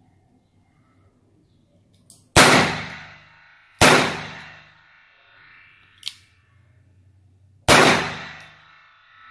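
Three shots from a Smith & Wesson .38 Special revolver with a 6-inch barrel, the first two about a second and a half apart and the third some four seconds later, each trailing off over about a second. A smaller sharp click comes between the second and third shots.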